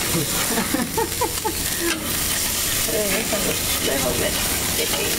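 Striped bass fillets searing and sizzling on the very hot grate of a gas grill, a steady hiss.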